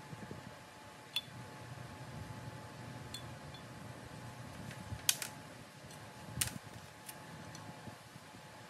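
Scattered sharp metallic clicks and clinks of a hand wrench on the bolts joining a Ford Model A torque tube to the differential housing, about six over several seconds, the loudest a little past the middle, over a steady low hum.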